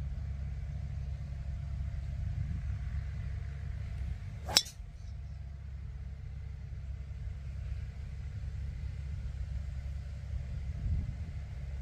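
A golf driver striking a teed-up ball on a tee shot: one sharp, loud crack with a short ring, over a steady low rumble.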